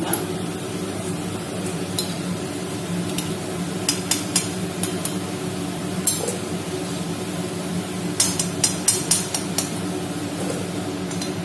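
Gulab jamun balls deep-frying in hot oil in an aluminium kadai, a steady sizzle, with sharp metallic clicks and clinks of a metal slotted spoon against the pan as the fried balls are scooped out, bunching into a quick run of clinks about eight seconds in.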